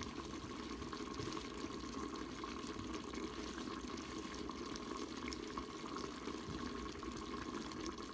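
A covered pan of chicken and pork adobo in coconut milk simmering: a steady bubbling with fine crackles under the glass lid, over a faint steady tone.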